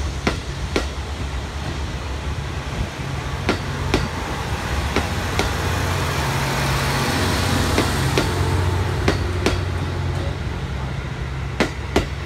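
Passenger coaches of the SL Yamaguchi train rolling slowly past, their wheels clicking in pairs over rail joints every few seconds, over a low steady rumble. A hiss swells and fades in the middle.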